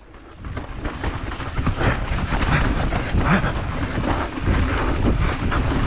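Wind buffeting a helmet-mounted camera microphone at speed on a mountain bike descent, building over the first couple of seconds, mixed with the bike and tyres rattling and knocking over rough trail.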